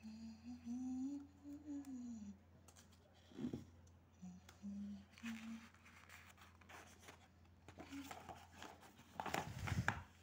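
A person softly humming a few notes, then a notebook page being turned over, the paper rustling and flapping, loudest just before the end.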